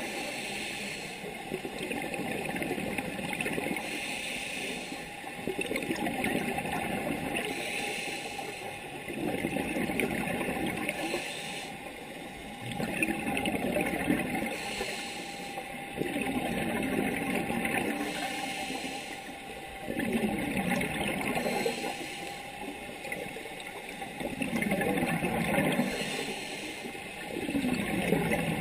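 Scuba regulator breathing heard underwater: bubbly gurgling rushes of exhaled air that swell and fade in a slow cycle, about every three to four seconds.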